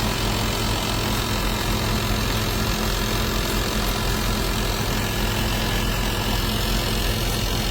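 Window air conditioner running, a steady hum under an even rush of fan air.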